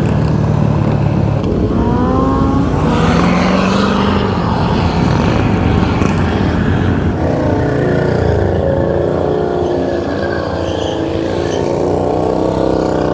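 Motorcycles riding at road speed in a group, heard from a Honda Grom, with heavy wind rumble on the microphone. An engine's pitch rises about two seconds in as it accelerates. From about seven seconds on, other engines waver up and down in pitch.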